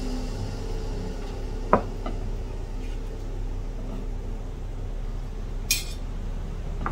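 A metal knife and tongs clinking against a ceramic plate while cutting cooked meat: one sharp ringing clink a little under two seconds in, a fainter one just after, and a short bright scrape near the end, over a steady low background hum.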